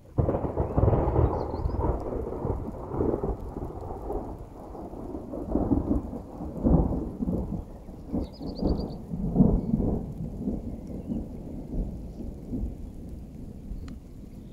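Thunder from a nearby cloud-to-ground lightning strike: a sudden loud crack that rolls into a long rumble with several swells, the last strong ones about seven and nine seconds in, then fading.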